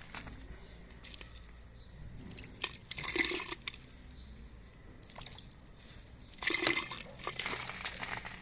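Water splashing and trickling along a metal gutter channel into a drain pit as it is poured in to test the flow, with two louder splashes about three seconds and six and a half seconds in.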